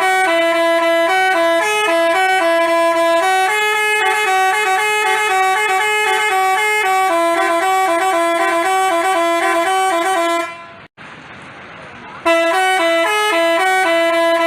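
Telolet basuri musical horn playing a quick tune of short stepped notes. The tune stops about ten and a half seconds in and starts again a second and a half later.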